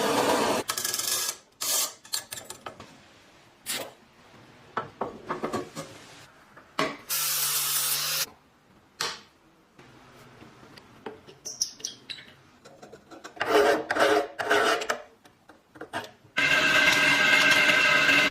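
Abrasive rubbing and scraping on an old clothes iron being restored, in about four stretches of one to two seconds each, with short knocks and clicks between them.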